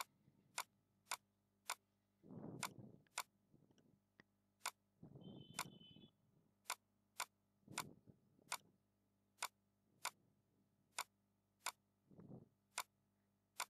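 Computer mouse button clicking, about twenty sharp single clicks spaced roughly half a second to a second apart, as nodes are picked one after another to draw beams in a CAD program. A few short, soft noises fall between some of the clicks.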